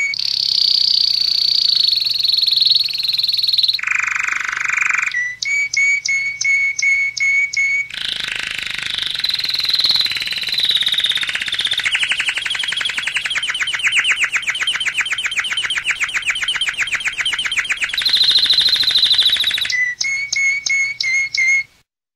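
Domestic canary singing a long song of repeated whistled notes and quick trills, with a fast rattling roll that runs for several seconds in the middle. The song breaks off shortly before the end.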